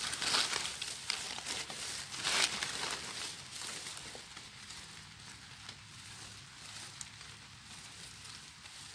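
Rustling and crackling of dry leaves and grass as a gloved hand pushes through the leaf litter to pick a mushroom, several short rustles in the first three seconds, then quieter.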